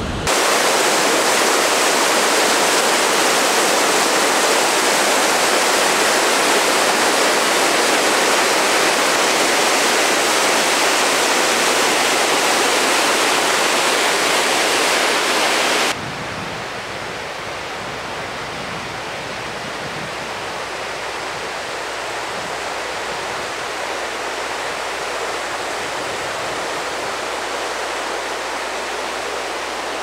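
Creek waterfall and rapids in flood, swollen by heavy overnight rain: a loud, steady rush of white water. About halfway through it drops suddenly to a quieter, steady rush.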